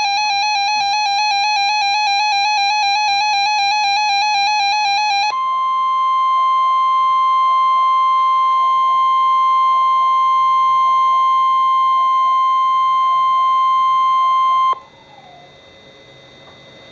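Weather radio alert: about five seconds of a rapidly pulsing electronic alarm beep, then the steady 1050 Hz NOAA Weather Radio warning alarm tone with a softer tone warbling up and down beneath it. The tones cut off sharply near the end, leaving faint background hiss.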